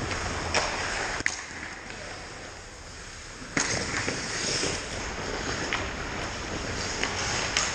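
Ice hockey rink sounds: skate blades scraping and hissing on the ice, broken by several sharp knocks of sticks and puck, the loudest about a second in and again about three and a half seconds in.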